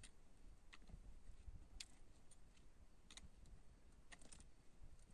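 Near silence, broken by a few faint, sharp ticks scattered through it: one about a second in, one near two seconds, one around three seconds and a short cluster after four seconds.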